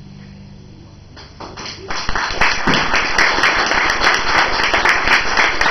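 The last chord of a string quartet dying away, then a small audience's applause starting about a second in and building quickly to steady clapping.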